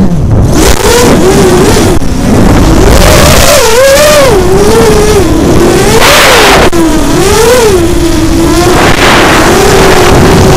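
ImmersionRC Vortex 250 Pro racing quadcopter's brushless motors and propellers whining, heard from the onboard camera, the pitch swooping up and down with the throttle, with bursts of rushing noise.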